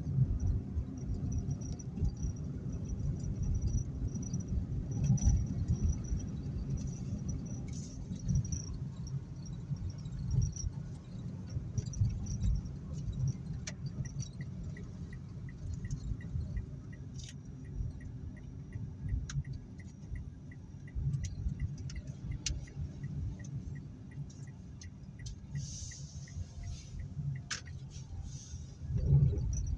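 Low road rumble inside a moving car's cabin. About halfway through, a turn-signal indicator starts ticking steadily at about three ticks a second, and it stops shortly before the end.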